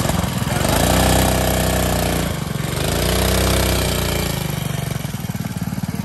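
Small engine of an off-road buggy revving up and back down twice, then running at a steadier lower speed as the buggy pulls away.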